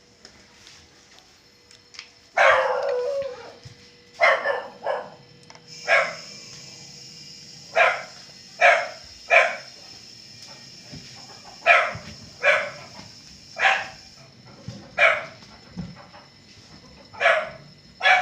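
A dog barking repeatedly: about a dozen short barks at irregular intervals, the first one drawn out.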